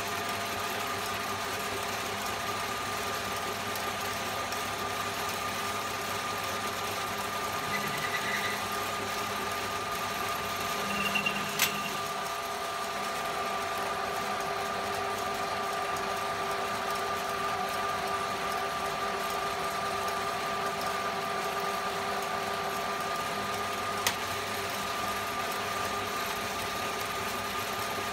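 Old Hahn & Kolb metal lathe running, its motor and gearing giving a steady mechanical whine, with a couple of sharp clicks along the way.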